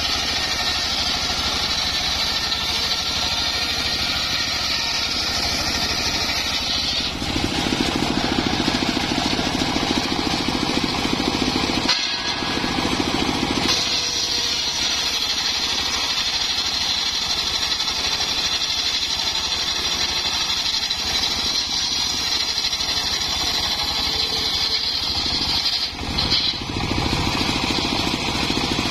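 Homemade engine-driven circular saw running steadily while ripping acacia planks, a high whine over the engine. About seven seconds in the sound turns lower and louder for several seconds, then the high whine comes back.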